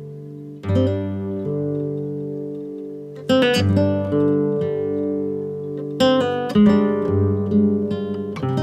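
Background music of a plucked, guitar-like string instrument: a chord sounds about every two and a half seconds, with single notes ringing between.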